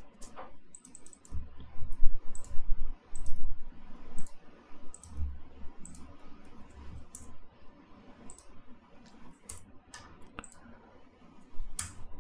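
Computer mouse clicking at irregular intervals during tab switching, with low dull bumps against the desk or microphone in the first half.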